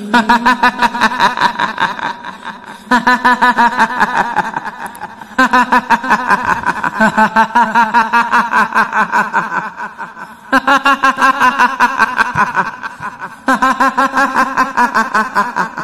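Ghostly cackling laughter in the manner of a kuntilanak: a rapid 'hihihi' that comes in five bouts, each starting loud and trailing off.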